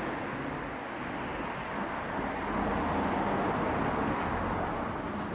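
Steady road traffic noise, a continuous rush with a low rumble underneath.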